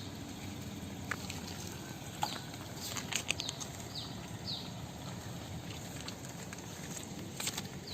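Outdoor background with birds giving short, falling chirps every second or two, and a few light clicks or taps near the middle and near the end.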